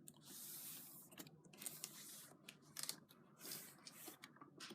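Near silence: a faint hiss with a few small scattered clicks and rustles.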